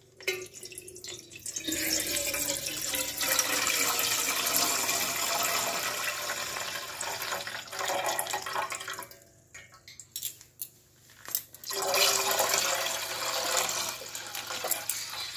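Milk poured from a plastic packet into an aluminium pot, a steady splashing stream of liquid. There are two pours, with a short break of about two seconds around nine seconds in, filled with a few light handling clicks as the next packet is brought over.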